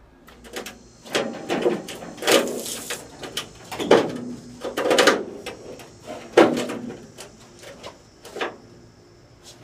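Thin sheet-metal outer jacket of a water heater clattering and scraping in irregular bangs as it is worked loose from the tank, with a faint metallic ring.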